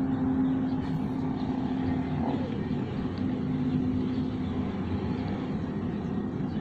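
Steady low hum over a noisy background, with a droning tone that fades out about four and a half seconds in.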